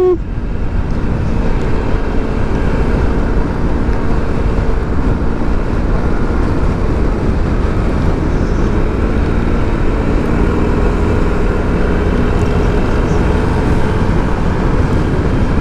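Motorcycle riding at speed: wind buffeting the rider's microphone, with the engine running at a steady pitch underneath.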